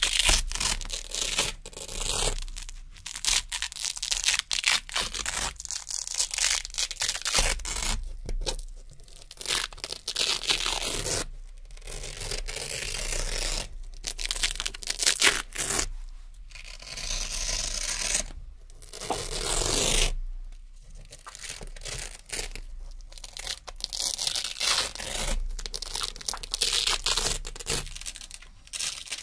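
Narrow hook-and-loop (Velcro) strips being peeled off a Velcro-covered board one after another: a run of crisp, crunchy ripping tears, each a second or two long, with short pauses between.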